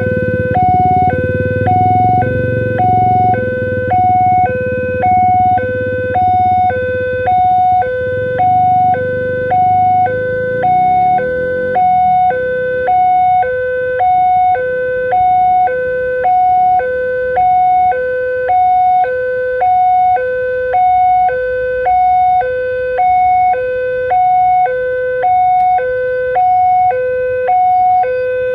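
Railway level-crossing warning siren alternating quickly and evenly between a low and a high tone, each held for under a second. Under it, the low rumble of a passing passenger train, which eases off about halfway through.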